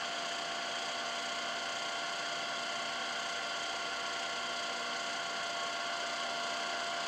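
1977 Ikeda RM-1375 radial arm drill running, its spindle turning while the quill power-feeds down toward the depth stop: a steady mechanical hum from the drive motor and gearbox, with a few fixed whining tones.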